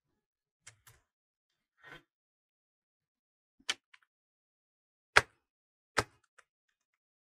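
Computer keyboard keys clicking as a prompt is typed slowly: about half a dozen separate clicks, the two loudest about five and six seconds in.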